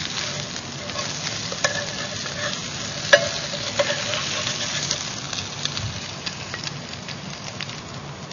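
Bột chiên (rice-flour cake with egg) sizzling in hot lard in a non-stick frying pan, with a spatula scraping and clicking against the pan as it is worked. One louder knock rings briefly about three seconds in.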